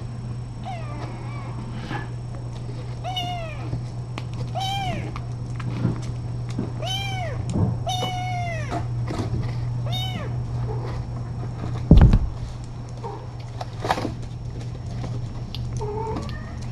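A kitten meowing again and again: about six high, rise-and-fall meows in the first ten seconds, the longest about eight seconds in. A steady low hum runs underneath, and a single loud thump comes about twelve seconds in.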